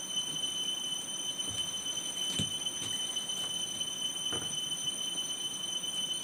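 Eating by hand from metal plates: a couple of soft knocks and clinks, about two and a half and four and a half seconds in. Under them runs a steady high-pitched whine.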